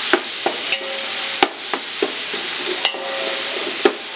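Garlic paste sizzling in hot oil with fried onions, stirred with a steel slotted spatula that clicks and scrapes against the aluminium pot about eight times at uneven intervals over a steady frying hiss.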